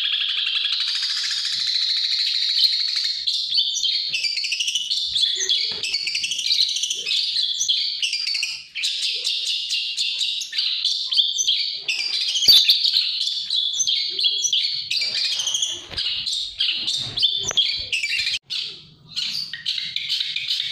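Long-tailed shrike (pentet) singing a rapid, unbroken chattering song. A few short knocks sound in the second half.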